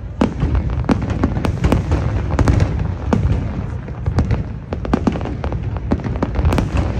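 Fireworks display: aerial shells bursting in a dense barrage, many sharp bangs and crackles in quick succession over a continuous low rumble.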